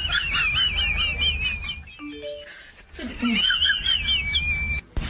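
High, rapidly warbling chirps like birdsong, broken about two seconds in by a short quiet gap with a brief low steady tone, then chirping again.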